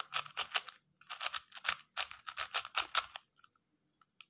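QiYi MS Pro 4x4 speedcube being turned fast during a solve: rapid plastic clicking of layer turns in three quick flurries. It stops a little after three seconds, with one more click near the end.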